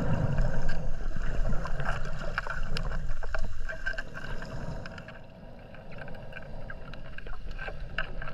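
Underwater sound from a submerged camera: a muffled, low rushing of water with many scattered faint clicks and crackles. It grows quieter about five seconds in.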